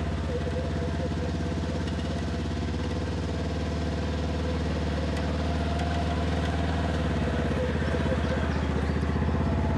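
Polaris General side-by-side's twin-cylinder engine idling steadily as it creeps over a rock, a little louder in the second half. No scrape or knock of the underbody on the rock is heard: it clears.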